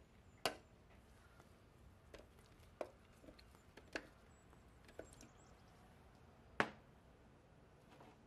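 Tomato pieces tipped into an empty plastic food processor bowl from a glass dish: a handful of separate soft knocks and taps, two of them louder, one near the start and one about two-thirds through.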